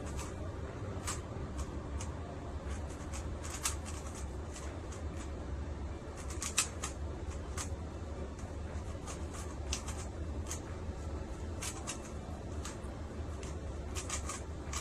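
Rubik's cube being solved at speed: rapid, irregular plastic clicks and clacks of its layers turning, over a steady low hum.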